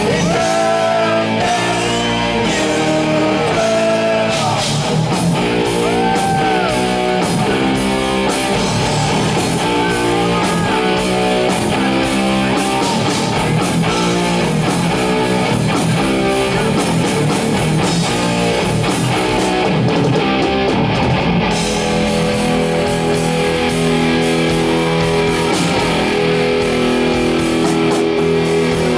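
Live heavy metal band playing an instrumental passage: distorted electric guitars chugging a riff over bass and drums, with bending lead notes. About 22 seconds in, the riff changes to longer held notes.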